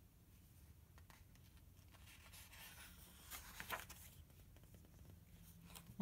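Faint rustling of paper as the page of a paperback picture book is turned, loudest about three to four seconds in.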